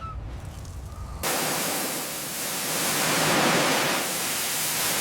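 A low rumble, then an abrupt loud rushing hiss about a second in that keeps going, swelling slightly.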